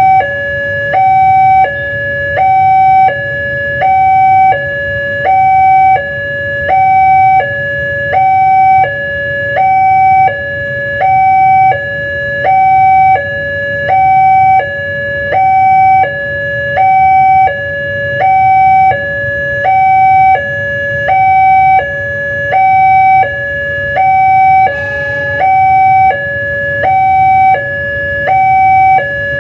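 Two-tone siren alternating steadily between a high and a low note, about one high-low cycle a second, with no rise or fall in pitch or loudness. A low hum runs beneath it.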